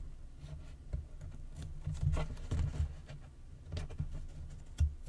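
Scissors snipping a narrow paper strip in a few short, separate cuts, with light handling knocks of the cardboard box on the table.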